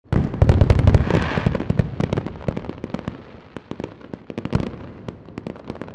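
Fireworks: a low boom with dense crackling pops in the first couple of seconds, the pops then thinning out and fading.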